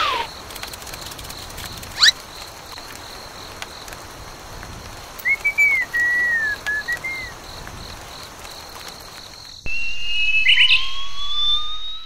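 Cartoon whistle sound effects: a quick upward zip about two seconds in, a short whistled phrase of arching, falling notes in the middle, and a long rising whistle glide over the last two seconds.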